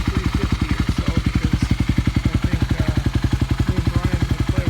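2009 Kawasaki KLX250's single-cylinder four-stroke engine idling steadily through an FMF Q4 full exhaust, warming up after a cold start on choke. Even exhaust pulses, about ten a second.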